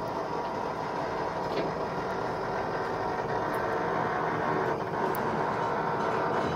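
Hunter wheel alignment lift lowering a car while its lower button is held down: a steady mechanical running sound that grows slightly louder.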